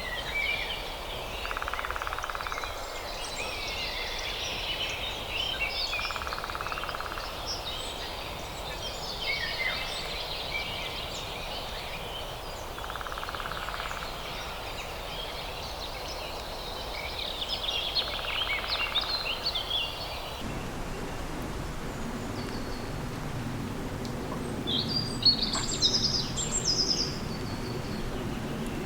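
Wild birds chirping and trilling in a chorus of many quick high calls. About two-thirds of the way in, the background changes abruptly to a low steady rumble, and a burst of high chirps comes near the end.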